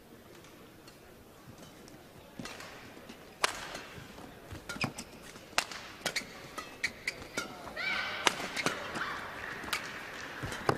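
Badminton rally: sharp racket strikes on the shuttlecock, starting a few seconds in and coming every half second to second, with brief shoe squeaks on the court and crowd noise in the arena rising as the rally goes on.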